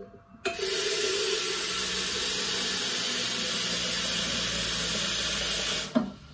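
Tap water running steadily into a metal kettle, turned on about half a second in and shut off about a second before the end.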